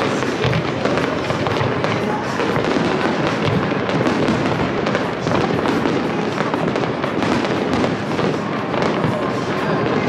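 Fireworks display: a dense, unbroken run of bangs and crackling.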